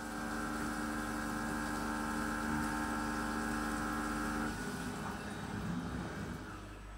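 SYIL X5 CNC mill running an end mill through the workpiece under flood coolant: a steady whine of several pitched tones over the hiss and splash of the coolant jets. The tones stop about four and a half seconds in, leaving the coolant and machine noise running more quietly.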